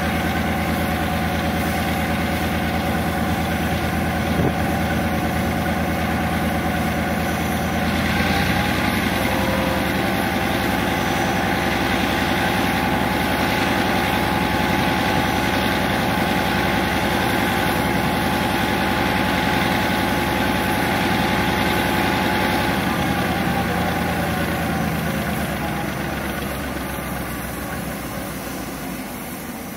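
Diesel locomotive engine idling with a steady low hum. About eight seconds in the sound changes: the low hum weakens and a hiss with a steady higher tone comes in, and over the last few seconds it all fades down.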